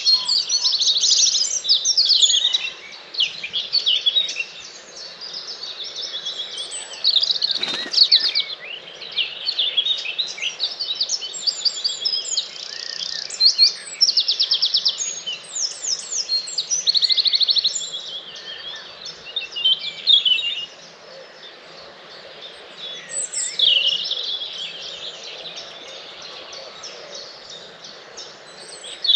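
Dawn chorus of many songbirds singing at once, with fast trills and varied phrases overlapping. A single quick sweep falls steeply in pitch about eight seconds in.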